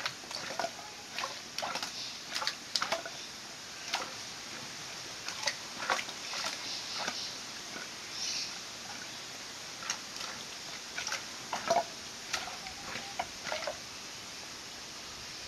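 Wild boar rooting with its snout in wet gravel and shallow water: irregular short splashing and snuffling sounds, a few a second, with a louder one about twelve seconds in.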